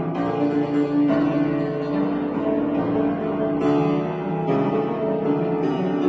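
Upright piano being played, with new chords struck every second or so.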